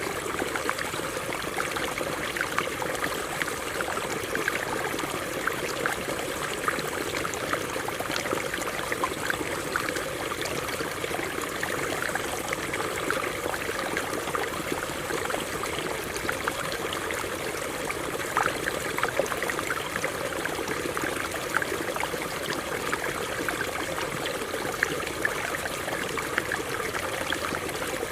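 Stream of water running over rocks: a steady rush with frequent small splashes.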